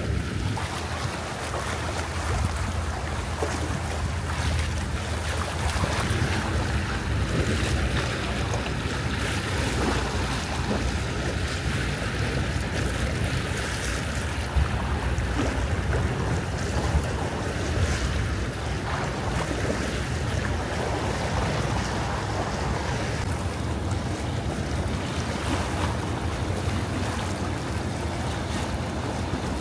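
Harbourside ambience: wind on the microphone and washing water over a steady low rumble, with no clear single event standing out.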